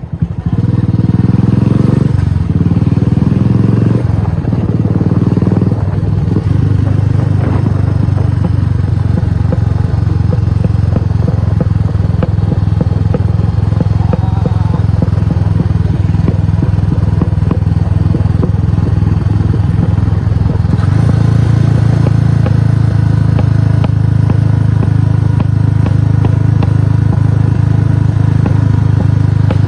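Royal Enfield Classic 350's single-cylinder engine running through an aftermarket exhaust while riding. The note climbs and drops back through gear changes in the first few seconds, then holds a steady cruise, picking up a little about two-thirds of the way through.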